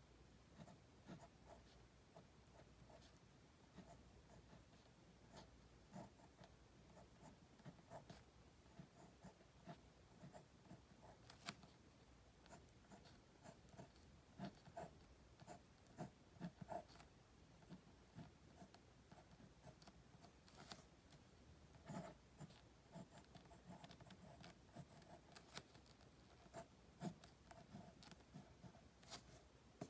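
Faint pen strokes on a paper card: short, irregular scratches and light ticks of the nib as characters and letters are written stroke by stroke.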